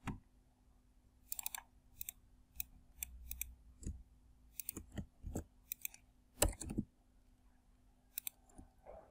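Faint, irregular clicks of a computer mouse and keyboard keys, about a dozen separate taps, the loudest about six and a half seconds in.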